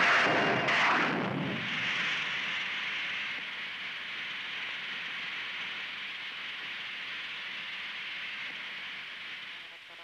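Cartoon sound effect of a rocket blasting off: a loud burst of rushing noise at ignition, settling into a steady hiss of exhaust as it climbs, fading a little near the end.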